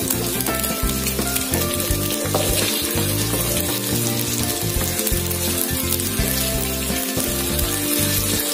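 Eggs scrambled with shallots, garlic and chillies sizzling in hot oil in an aluminium wok, stirred with a spatula, a steady frying hiss. Background music plays along with it.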